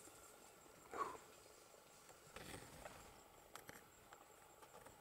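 Near silence: faint outdoor bush ambience, with one short sound about a second in and a few light clicks later on.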